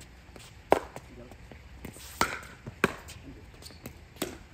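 A pickleball rally: a plastic ball struck by paddles in four sharp, hollow pops, the first the loudest, spaced about a second apart.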